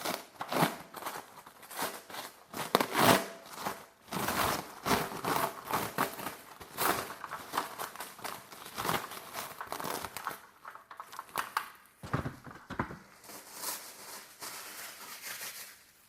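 Packaging crinkling in irregular rustling bursts as it is handled during unboxing.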